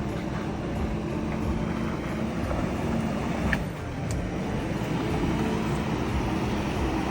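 Car engine running steadily with a low, even hum.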